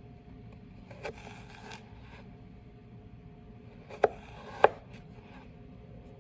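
Chef's knife slicing carrot into thin sticks on a cutting board: a soft cut about a second in, then two sharp knocks of the blade hitting the board about half a second apart, near four seconds in.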